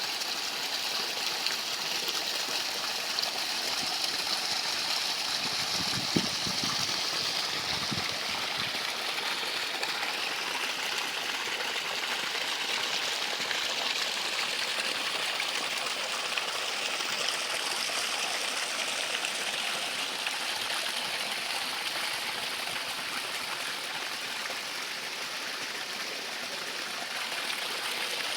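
Flowing water, a steady even rush like a stream. Two brief low bumps about six and eight seconds in.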